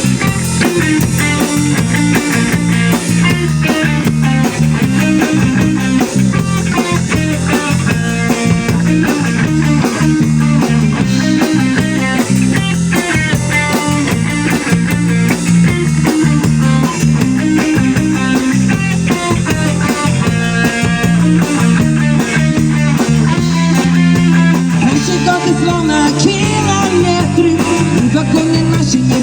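A band playing a rock-style song, with guitar and a drum kit keeping a steady beat.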